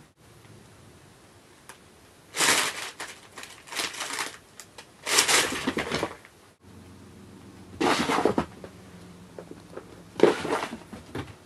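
A clear plastic bag crinkling in five short bursts as a cat pounces on it and paws at it.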